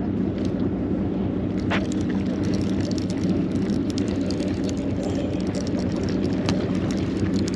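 Boat engine running with a steady low drone, even and unchanging throughout, with faint scattered ticks over it.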